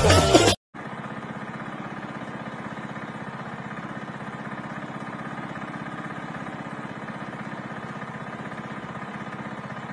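A small engine running steadily at an even speed, with a fast regular pulse.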